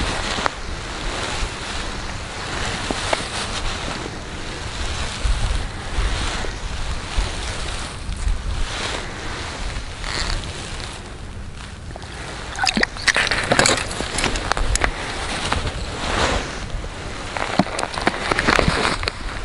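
Wind buffeting the microphone, a steady rumbling hiss, with rustling and scraping handling noises that cluster about two-thirds of the way through and again near the end.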